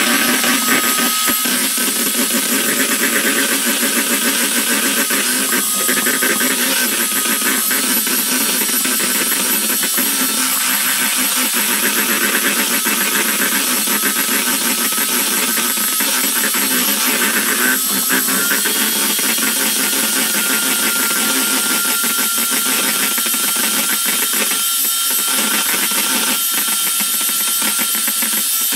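Electric mixer running steadily, whipping liquid cream toward a firmer consistency. It is a continuous whirring with a faint steady whine that shifts up slightly about halfway through.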